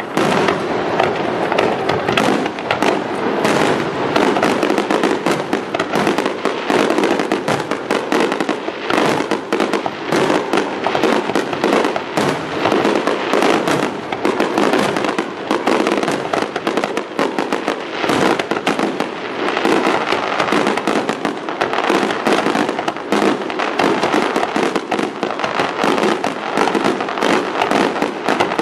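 Aerial fireworks shells going off in a rapid, continuous volley of bangs, many a second and without a pause.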